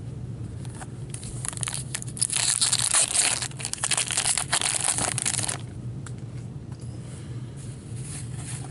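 A foil pack of hockey cards being torn open, the wrapper ripping and crinkling for about four seconds, then falling to quieter handling of the cards.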